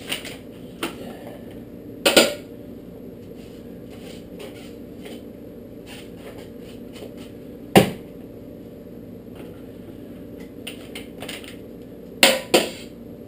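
A metal mesh strainer knocking and clanking against a stainless stockpot and a trash can while spent mash grain is dumped and more is scooped up. There are a few separate knocks, the sharpest about halfway through, and two quick clanks near the end, with light ticks and a steady low hum underneath.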